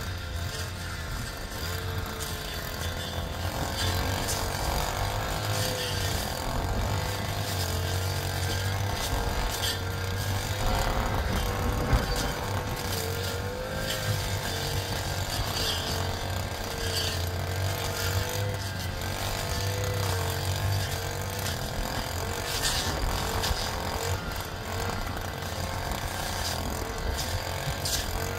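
An engine running steadily, its pitch wavering slightly up and down, with one sharp knock about twelve seconds in.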